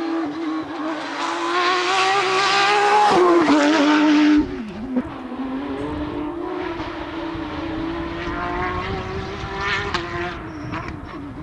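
Porsche 911 (992) rally car's flat-six engine held at high revs and growing louder as it approaches, then dropping away sharply about four seconds in as it passes. A lower, steady engine note follows over a low rumble and fades near the end.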